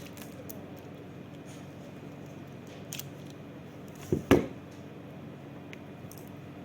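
A hand cutter snipping the ends of the eight untwisted Cat6 wires level: a faint click about three seconds in, then a sharp double snap about a second later.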